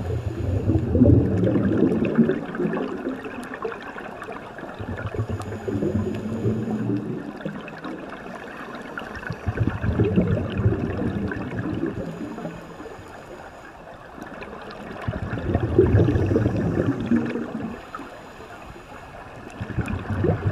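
Scuba regulator exhaling: air bubbling out in four gurgling bursts roughly five seconds apart, each about two seconds long, heard underwater, with quieter gaps between breaths.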